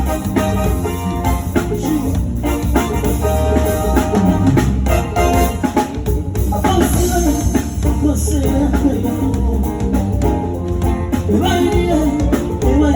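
Live band playing: drum kit keeping a steady beat under bass and guitar, with a singing voice.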